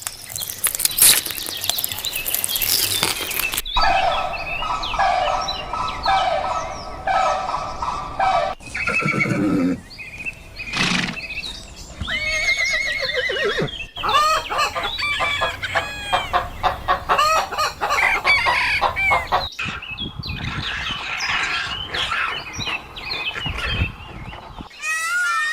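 Farm animals calling in a string of short clips cut one after another, the sound changing abruptly every few seconds to a different animal's calls.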